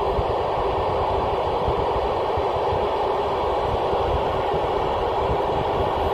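Steady static hiss from an Icom IC-2730A FM receiver with its squelch open, tuned to the SO-50 satellite with no signal coming through. Wind buffets the microphone underneath.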